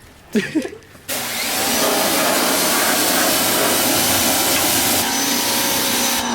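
Electric pressure washer switched on about a second in and spraying steadily, a loud hiss of water over a high motor whine; near the end the trigger is released and the motor starts winding down with a falling whine.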